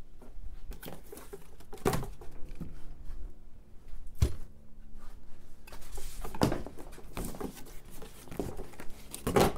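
Handling noises on a paper-covered workbench: scattered knocks and rustling as a cardboard box and loose parts are moved, with the loudest knock just before the end.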